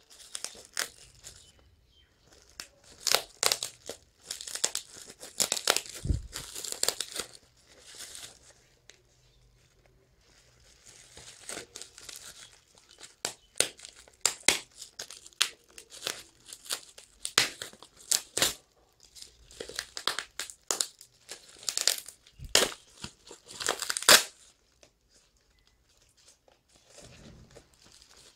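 Courier packaging being torn open and crinkled by hand, in irregular bursts of crackling with sharp snaps, stopping about 24 seconds in.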